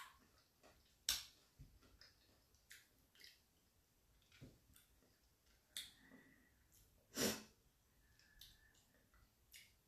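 Close-up chewing of crunchy raw mango: faint scattered crunches and mouth clicks, with two louder crunches about a second in and about seven seconds in.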